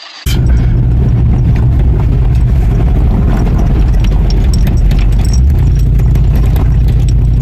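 Ford Bronco II's engine running loud and steady with a light rattling tick, cutting in abruptly a moment in.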